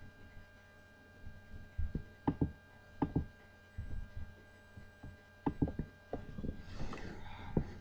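Computer mouse clicking and knocking on the desk in short groups of one or two clicks, over a steady electrical hum from the computer and microphone.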